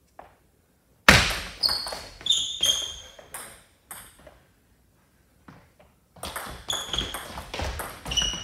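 Table tennis ball knocking off rackets and the table: a loud sharp knock about a second in, then a few ringing pings, a lull, and a quick run of pings from a rally starting about six seconds in.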